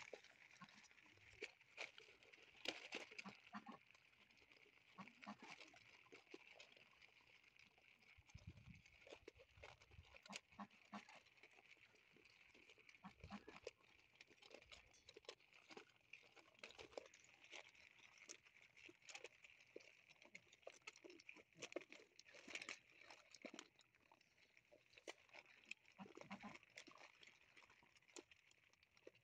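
A litter of XL American Bully puppies eating dog food together: faint, irregular crunching, smacking and clicking of many mouths on kibble, with the odd small grunt.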